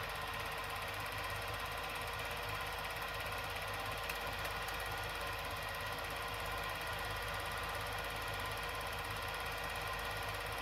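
Steady mechanical whirr and hum of a small motor running evenly, with a faint tick about four seconds in.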